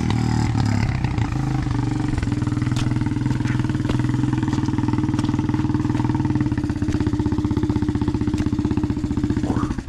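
Quad (ATV) engine running at a steady speed under throttle, with an even pulsing beat; it cuts off suddenly near the end.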